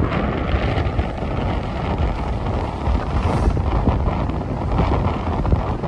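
Strong wind buffeting the microphone: a steady low rush that wavers with the gusts.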